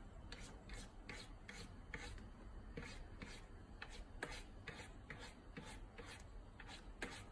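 Faint, soft rasping strokes from a cat's paw scratching at a smooth counter top beside a piece of food, about two to three strokes a second.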